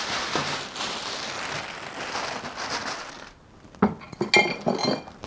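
Small metal parts being handled and set into a plastic storage tote: a rustling hiss, then near the end a quick run of sharp metallic clinks and clatters with a bright ring.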